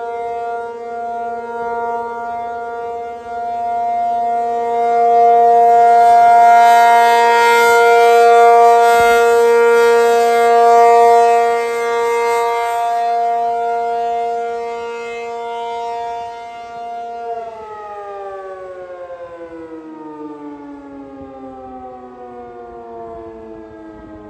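ACA P50 outdoor tornado warning siren sounding its steady alert tone, swelling louder for several seconds in the middle. About seventeen seconds in the alert ends and the siren winds down in a long falling pitch.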